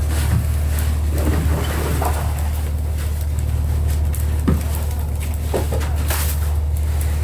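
A steady low machine drone, with scattered scrapes and clunks of shovels digging into a heap of fish.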